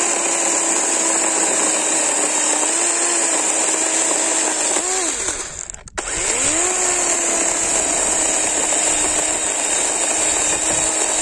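DeWalt DCCS620 20V brushless cordless chainsaw cutting through a wooden board. Its pitch sags slightly under load and winds down about five seconds in. It spins up again about six seconds in for a second cut.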